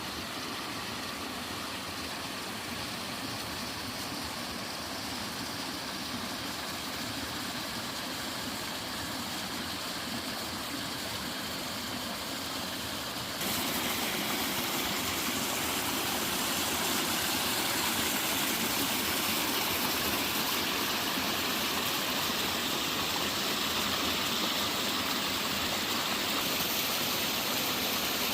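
A mountain valley stream and waterfall rushing steadily over rocks. About thirteen seconds in, the sound jumps abruptly to a louder, hissier rush of water.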